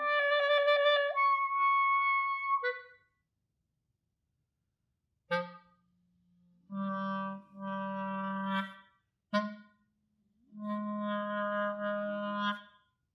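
Clarinet playing extended techniques: first a note with a fast fluttering timbral trill that settles into a held tone, then, after a short pause, several phrases of growling, where the player sings or hums a low note into the instrument while playing, so a low voice tone sounds under the clarinet's own note.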